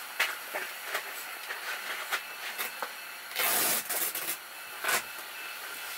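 Steady hiss of a propane heater running inside an ice-fishing shelter, with scattered light clicks. A loud breathy whoosh comes a little past halfway.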